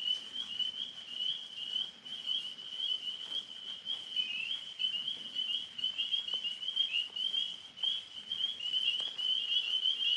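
Night chorus of tree frogs by a pond: many overlapping high-pitched chirps merging into a steady trilling drone.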